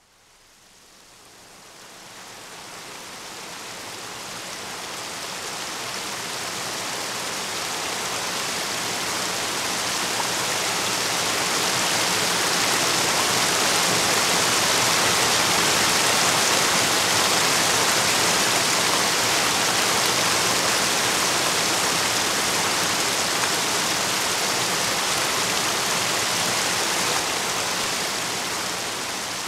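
A steady, even rushing noise like running water, with no pitch or rhythm, fading in over the first few seconds.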